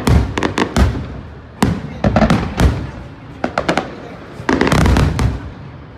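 Aerial fireworks shells bursting in quick volleys of sharp bangs, clustered every second or so, with a denser run of reports about four and a half seconds in.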